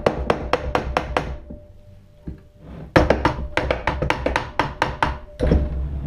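Soft-faced mallet tapping quickly and lightly on a 50cc scooter engine's cast alloy crankcase halves, about six taps a second, to break the halves apart. The tapping comes in two runs with a short pause between, and a heavier knock near the end.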